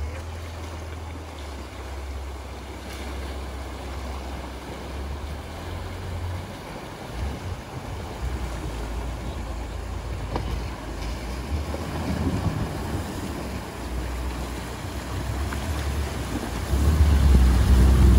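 Rushing river water with wind buffeting the microphone, over the low engine note of an off-road SUV wading through a deep river crossing. The low rumble grows heavier and louder near the end.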